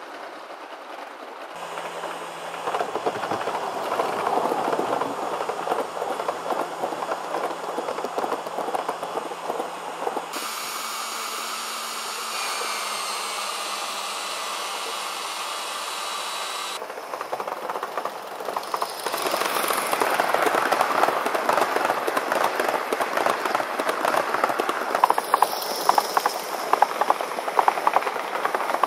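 Live steam model trains running on a large-scale model railway: wheels rumbling and rattling along the track, with a stretch of steady hiss from a live steam model locomotive in the middle. Near the end the rattle grows louder, with quick clicks of wheels over the rail joints.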